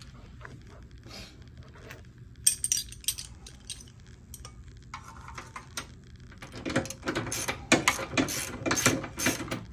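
Hand wrench turning the nut off a golf cart leaf spring's front shoulder bolt: metal clicks and clinks, a few at first, then a quick run of clicks at about four a second in the last three seconds.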